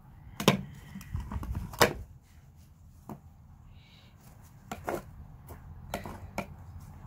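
A putty knife tapping and clicking against a door frame while putty is worked into chewed spots: a handful of sharp taps, the two loudest in the first two seconds, then softer ones spread out.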